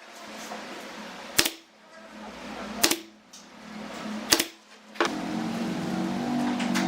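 Three sharp knocks in the workshop, evenly spaced about a second and a half apart, then a small motor starts running steadily about five seconds in.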